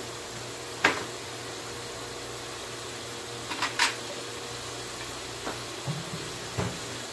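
Chicken and masala gently sizzling in a wok on the stove: a steady hiss with a few sharp pops of spattering oil, one about a second in and a pair near the middle, over a low steady hum.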